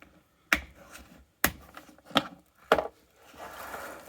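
Sharp clicks and knocks of a cordless ratchet kit's packaging being handled and opened: four distinct knocks, then a softer rubbing near the end.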